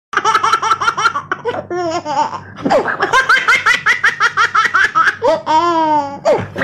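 Baby belly-laughing in quick runs of high-pitched laughs, about five a second, with a longer drawn-out squeal about five seconds in.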